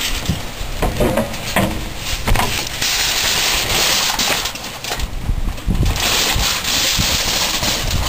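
Aluminium foil crinkling and rustling as it is wrapped around a brisket, in two dense crackly bouts, the first about three seconds in and the second about six seconds in.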